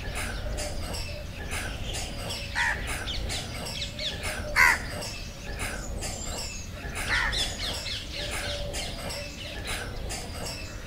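Birds calling: a crow caws three times, loudest around the middle, over steady chirping of smaller birds.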